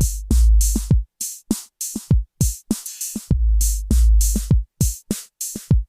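Background music: a drum-machine beat with deep, sustained bass-drum hits and crisp, high percussive hits in a steady rhythm.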